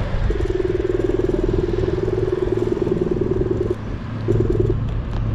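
Wind and road noise from riding an electric scooter, with a low steady hum. Over it a buzzing, steady-pitched tone sounds for about three and a half seconds, stops, and sounds once more briefly about four seconds in.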